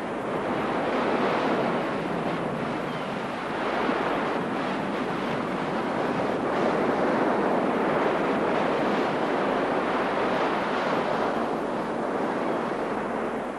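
Sea surf breaking on a beach in a cold wind: a steady rushing that swells and eases a few times.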